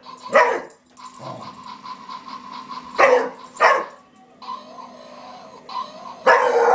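Beagle barking: one bark about half a second in, two more around three seconds in, and a longer bay with a falling pitch near the end.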